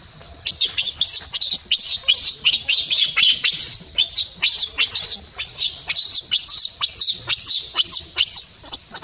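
Newborn macaque screaming and crying: a fast, unbroken run of shrill calls, about two to three a second, each rising and then falling in pitch, starting just after the beginning and going on almost to the end.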